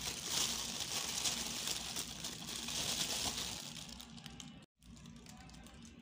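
Thin plastic bag crinkling and rustling as a hand pulls it open inside a takeout food box. It stops abruptly about three-quarters of the way through, and after that it is much quieter.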